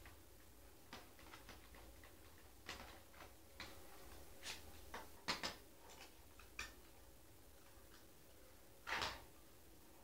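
Faint, irregular clicks and small knocks of a steel Grivel crampon being handled while its regulation bar and front section are adjusted, with a slightly longer knock near the end.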